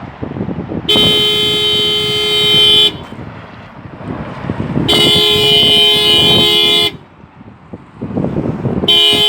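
Renault Megane's factory alarm sounding the car horn in repeated blasts of about two seconds with two-second pauses, three blasts starting about one, five and nine seconds in, each holding two notes at once. The alarm has been tripped by a door handle being pulled while the car is locked and armed.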